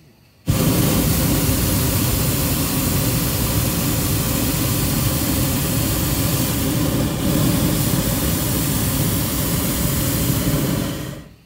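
Hot air balloon's propane burner firing in one long blast of about ten seconds: a loud, steady roar that starts abruptly and cuts off near the end.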